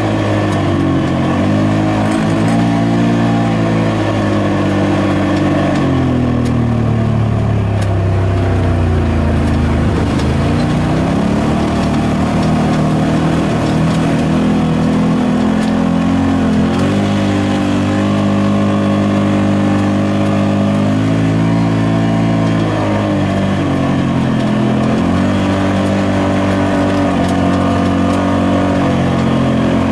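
Side-by-side UTV engine running under way, its pitch rising and falling with the throttle. It sinks to a low crawl about ten seconds in, climbs sharply again about seven seconds later, and dips and rises once more near the end.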